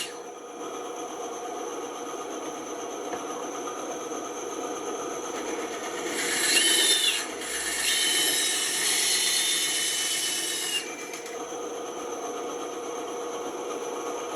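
Band saw running steadily, its blade rasping through wood in two louder passages around the middle, with a faint high whine during the cut.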